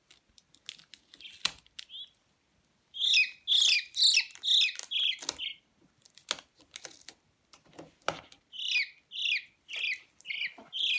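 A peachick peeping: a run of loud, quick, falling cheeps about three seconds in, then another series of cheeps near the end, with a few sharp clicks between.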